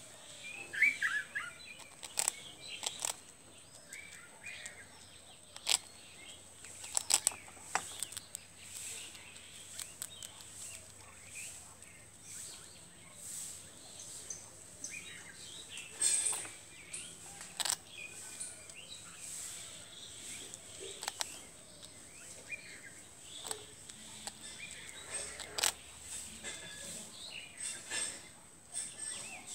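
A small animal crunching and gnawing hard toast: irregular sharp crunches every second or two, with birds chirping in the background.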